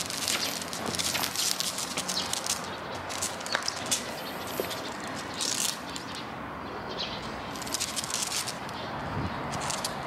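Outdoor ambience with birds chirping now and then over scattered small clicks and rustles.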